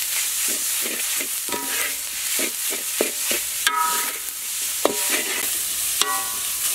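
A metal ladle scraping and stirring ground pork around a hot wok in repeated strokes, over steady sizzling of frying food. It gives a couple of short metallic rings against the wok, about halfway through and near the end.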